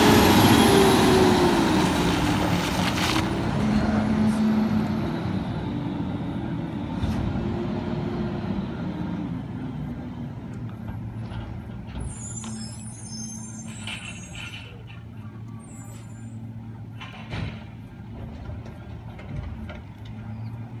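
Peterbilt 320 garbage truck passing close by. Its engine note rises and falls as it goes past, then fades steadily as it drives away down the street.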